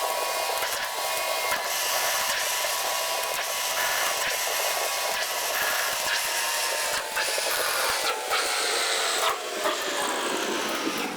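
A power tool's electric motor running under work, with a steady hiss, a whine and scattered clicks; the whine falls in pitch over the last few seconds as the tool slows.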